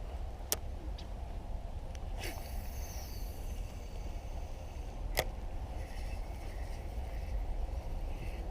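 A fishing rod cast whooshing through the air for about a second, starting about two seconds in, with two sharp clicks, one near the start and one about five seconds in, over a steady low wind rumble on the microphone.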